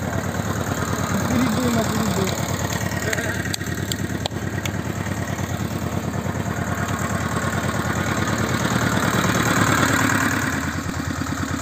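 Engine of a homemade tractor idling steadily with an even rapid beat, a few light knocks about halfway through, and a little louder near the end.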